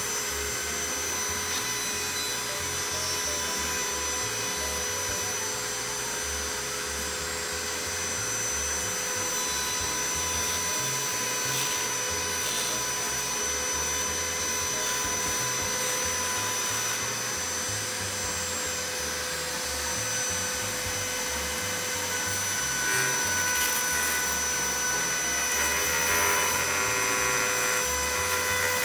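Handheld high-speed rotary tool running with a steady whine as it cuts along the rough edge of a moulded fibreglass composite part, trimming off the excess flash. It gets a little louder in the last few seconds as it bites into the material.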